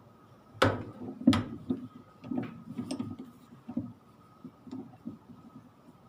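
Long Phillips screwdriver working the central screw of a top-loading washing machine: two sharp clicks just under and just after a second in, then lighter scattered ticks and knocks.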